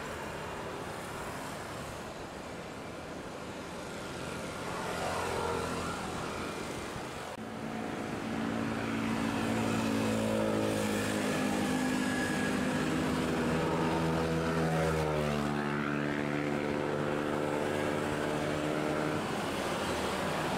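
Motor traffic: vehicle engines running and passing, over a steady background hum. From about seven seconds in the engines grow louder and their pitch steps up and down, with one rising-then-falling sweep like a vehicle going by.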